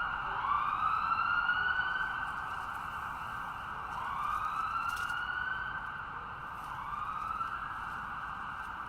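Ambulance siren wailing: three rising sweeps a couple of seconds apart, each climbing in pitch, growing fainter as it goes.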